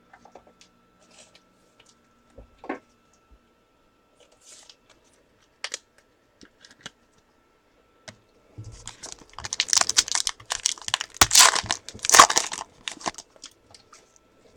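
A trading-card pack's wrapper being torn open and crinkled. It starts with a few light clicks and handling sounds, and about nine seconds in a dense crackle of tearing and crinkling takes over for about four seconds.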